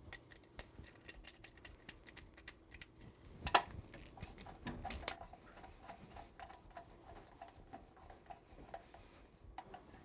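Faint hand work on electrical wiring: many small clicks, taps and light rustling, with one sharper knock about three and a half seconds in.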